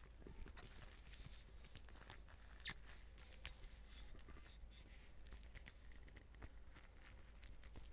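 Rubber-gloved hands working, making soft, sticky crackling and rubbing sounds, with a couple of sharper snaps about two and a half and three and a half seconds in.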